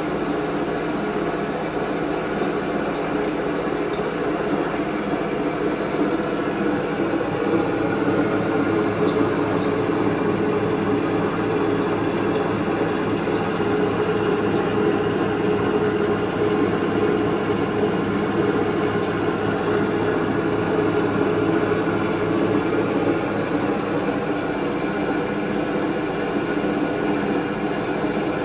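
Toshiba TW-80TA washing machine spinning with a loud, steady rumbling drone that swells a little midway: an abnormal noise it has recently begun to make during the spin cycle.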